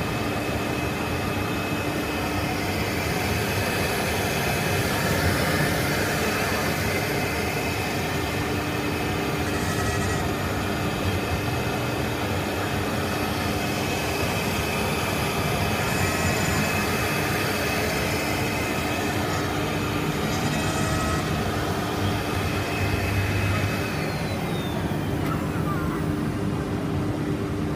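Three-head CNC router's spindles running and milling acrylic sheet: a steady machine whine with the noise of the cutting bits, unchanging throughout.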